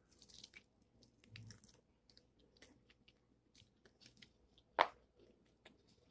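A person eating fried chicken: faint chewing and small crackles of crispy batter as meat is pulled from the bone, with one sharper, louder click about five seconds in.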